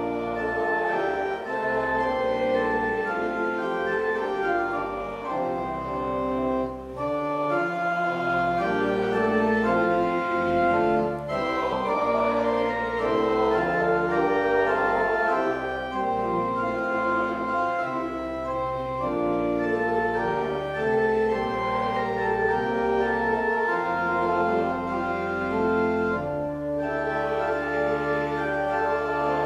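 Church organ playing full, sustained chords, with the bass notes and harmony changing every second or two.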